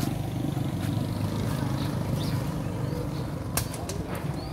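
A motor vehicle engine running with a steady low hum that slowly gets quieter, and a few sharp clicks about three and a half seconds in.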